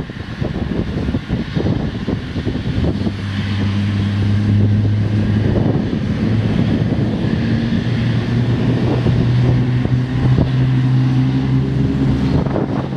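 Jet airliner engines running with a steady low hum that rises slightly in pitch about two-thirds of the way through, while wind buffets the microphone.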